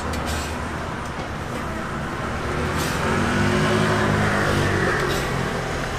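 A motor hums over a steady background din, growing louder about halfway through and easing off near the end. A few light clicks come from a metal spatula on the griddle tray.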